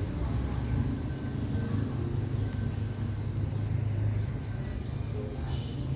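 Steady high-pitched insect drone, unbroken, over a continuous low rumble.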